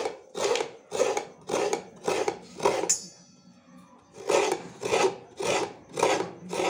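Fresh coconut flesh being scraped out of a half shell on a coconut scraper: rhythmic rasping strokes, about two a second, with a pause of about a second partway through.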